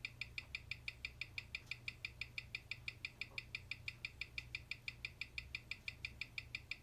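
Mechanical watch movement ticking at 21,600 beats per hour, six even ticks a second, picked up on a timing machine's microphone. The beat is that of a healthy movement, running a few seconds a day fast with 0.3 ms beat error.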